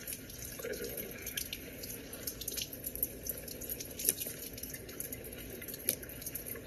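Kitchen tap running into a sink, a steady rush of water with scattered small clicks and drips.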